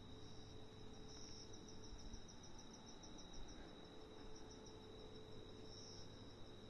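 Faint insect song from a large insect called a giant locust: a steady high-pitched buzz, with a rapid pulsed trill on top from about a second in to the middle.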